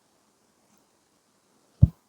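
A single short, dull thump near the end, over a faint steady hiss.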